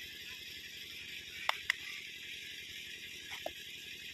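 Faint steady hiss of open-air ambience at a floodlit ground, with two brief sharp clicks about a second and a half in and a couple of fainter ones later.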